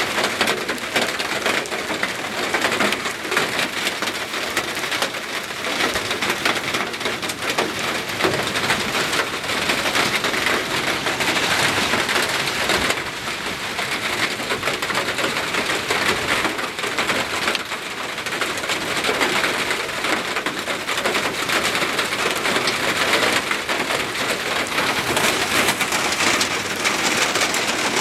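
Hailstones and heavy rain pelting down in a steady, dense patter of countless small impacts, swelling and easing a little now and then.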